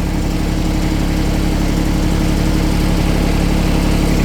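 Diesel engine of an old John Deere riding lawn tractor running steadily at a constant speed, a steady low drone.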